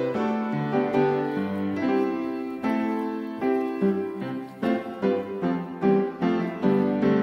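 Background music: a piano melody of separately struck notes, each fading after it is played.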